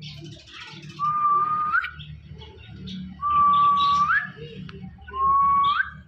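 Three long whistles about two seconds apart, each held on one steady note and ending in a quick upward flick.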